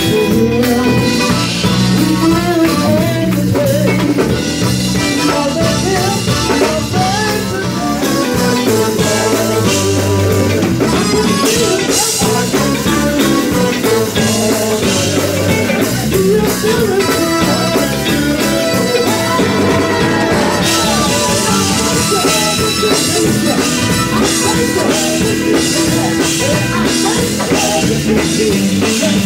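Male gospel vocal group singing live with a band of electric guitar and drum kit, loud and continuous.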